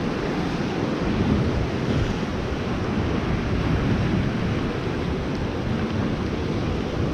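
Ocean surf breaking and washing over rocks at the shoreline, a steady rush of water, with wind buffeting the microphone.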